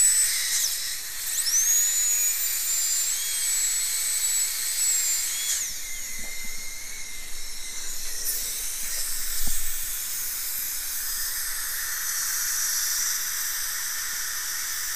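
High-speed dental handpiece whining as its bur cuts down a metal root canal post. The whine breaks off about half a second in, spins up again after about a second, wavers under load, and winds down about five and a half seconds in. A steady hiss fills the rest.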